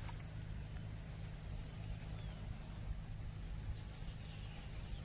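Steady low outdoor rumble with a few faint bird chirps now and then, each a short falling call.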